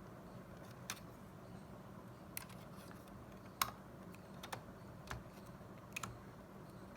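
Scattered sharp light clicks and taps, about six, from small laptop parts being handled and snapped into place during reassembly, over a faint steady hum.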